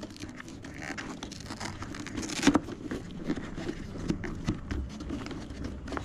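Hands working inside a motorcycle helmet's padded liner, pressing a Bluetooth headset piece onto Velcro: irregular rustling and scraping of fabric and foam with small clicks, and a sharper knock about two and a half seconds in.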